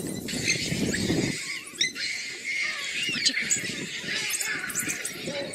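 African wild dogs twittering and squealing: a dense chorus of high-pitched chirps and short rising-and-falling squeaks. It starts over a low wind rumble that cuts off suddenly about a second and a half in.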